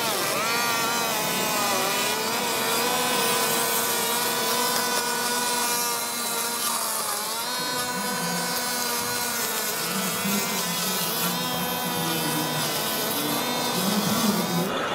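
Small electric drive motors of a radio-controlled Steyr model tractor with a front mower whining steadily, the pitch dipping briefly about a second in and again around seven seconds.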